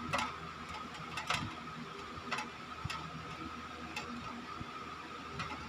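About six soft, irregular ticks of a spoon against a steel plate as sauce is spread onto a leaf, over a faint steady hum.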